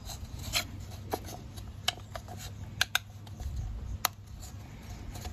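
A metal pick scratching and clicking against an oil filter housing cap as the old rubber O-ring is pried out. Faint scraping, with a few sharp clicks: two close together near the middle and one about four seconds in.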